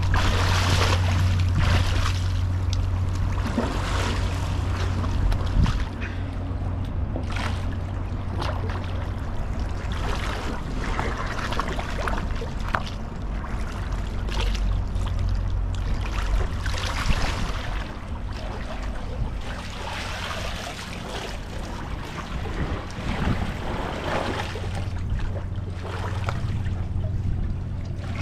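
Seawater splashing and lapping around a swimmer moving at the surface, with scattered short splashes over a steady low hum.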